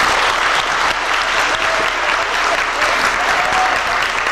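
Audience clapping steadily, with a few faint voices calling out over it.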